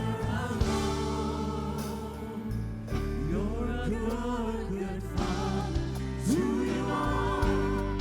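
A church worship band playing a contemporary worship song, with voices singing the melody over held bass notes and a steady drum beat.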